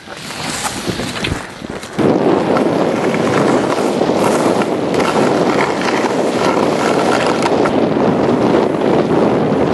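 Wind rushing over the microphone while riding a snowboard downhill. The rushing builds over the first two seconds, then turns loud and steady.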